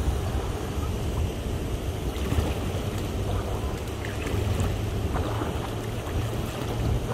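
Wind rumbling across the microphone over moving river water, with a few faint taps.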